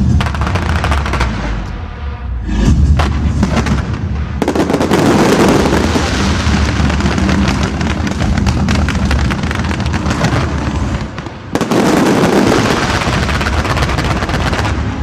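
Fireworks display: deep booms of shells bursting, then from about four seconds in a dense, continuous crackle of many small bursts, with a brief lull about three-quarters of the way through.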